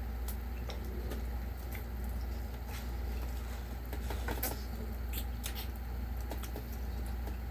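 Scattered small clicks and crackles of eating, from chewing and handling food, over a steady low hum, with a brief cluster of clicks about halfway through.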